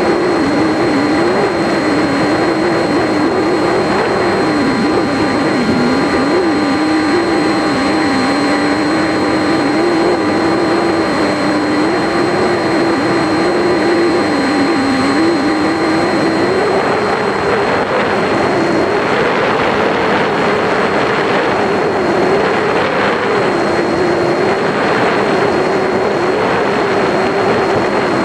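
Electric motor and propeller of a foam RC plane in flight, heard from the camera on board: a steady drone whose pitch wavers up and down, with a thin constant high whine above it. Rushing wind noise over the plane grows stronger about two-thirds of the way through.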